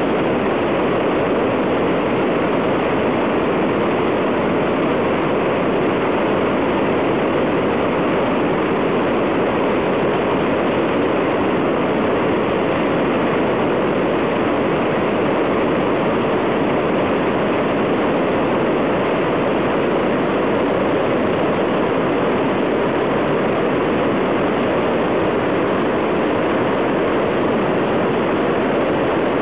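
Floodwater roaring down a rocky river gorge: a loud, steady, unbroken rush of white water.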